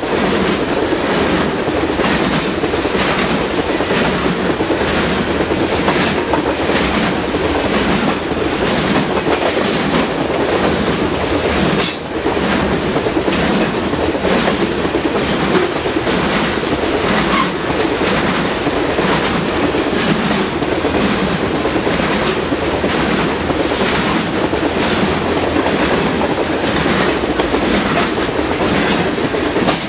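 Freight train of tank cars and covered hoppers rolling past close by: a steady rumble with a regular clickety-clack of wheels over rail joints.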